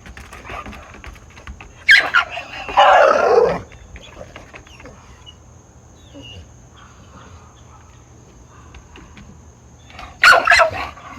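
Puppy barking in short outbursts: one about two seconds in and another near the end, with a quieter stretch between.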